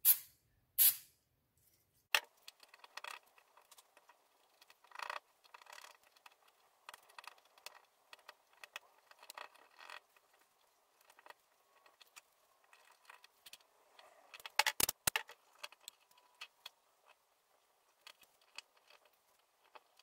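Aerosol electrical contact cleaner sprayed in two short hissing bursts in the first second. Then a cloth rag rubs and scratches over a small circuit board, with light clicks of handling and a quick cluster of sharper clicks about 15 seconds in.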